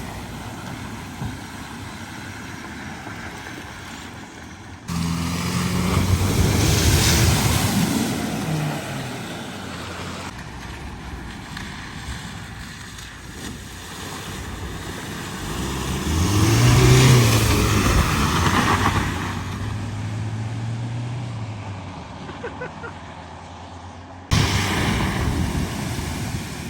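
Cars driving through a flooded ford: engines running, and water hissing and splashing as each vehicle pushes through, with two big surges of spray about a quarter and two thirds of the way in. Abrupt changes about five seconds in and near the end, where one clip cuts to the next.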